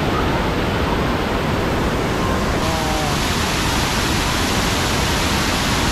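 Hot-spring waterfall at a grotto: falling water rushing steadily and loudly, getting brighter and fuller about two and a half seconds in.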